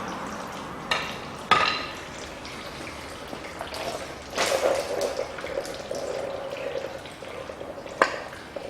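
Hand work on a car engine: a few sharp metallic clinks of tools and parts, and a couple of seconds of liquid trickling from about the middle, likely antifreeze draining from the engine during water-pump removal.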